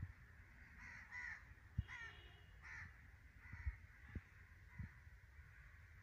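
Crows cawing as a flock passes: a quick run of about five harsh caws between one and three seconds in, then a few fainter ones. Several brief low thumps run through it.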